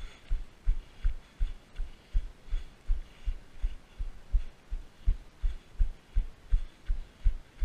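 A runner's footfalls at a steady jog, heard as even, low thuds about three times a second as each stride jolts the body-worn camera.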